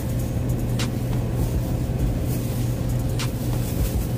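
Steady low hum of supermarket background noise, with two brief clicks about a second in and near the end.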